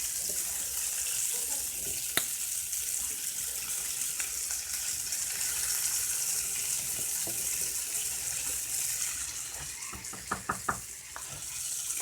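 Catfish fillets frying in butter in a pan, a steady sizzle. A sharp click about two seconds in and a quick run of three or four clicks near the end, like a utensil tapping the pan.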